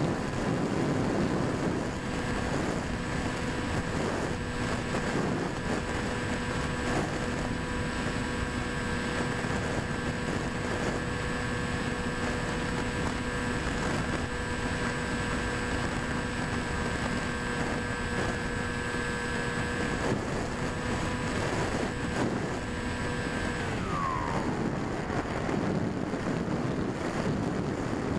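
Electric motor and propeller of a Quanum Observer FPV plane running at a steady part throttle in flight, a whine over rushing wind noise. About 24 seconds in the throttle is cut to zero and the whine falls away in pitch, leaving the wind noise of the glide.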